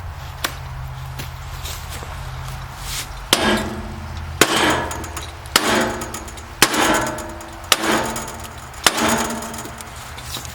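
Six evenly spaced hammer blows on metal, about one a second, each ringing briefly afterwards: knocking a stuck part of a bandsaw sawmill's blade-wheel adjustment loose.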